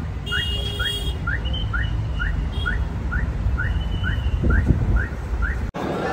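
A bird calling over and over in short rising chirps, about two a second, which stop about five seconds in. Beneath them runs a steady low rumble, the loudest sound here.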